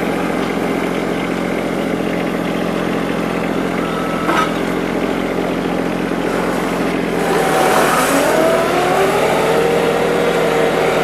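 Garden tractor engine running steadily, with a short click about four seconds in; around seven seconds in the engine note rises in pitch and then holds steady at the higher speed.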